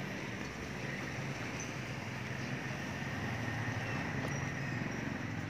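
Street ambience dominated by a steady low hum of motor traffic, with a few faint short high chirps over it.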